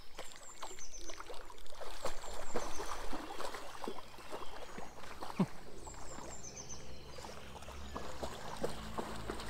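A dog wading through shallow river water, its legs splashing in short irregular sloshes.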